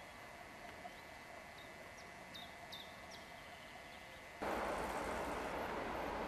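A bird gives a few short descending chirps over faint outdoor ambience. About four seconds in, the sound cuts abruptly to a loud, steady noise from a Berlin S-Bahn class 477 electric train.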